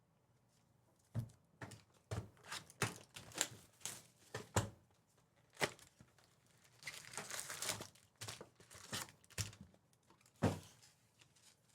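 Trading-card pack wrappers being torn open and crinkled by hand, with cards handled: a string of sharp crackles and ticks starting about a second in, and a longer crinkling stretch later on.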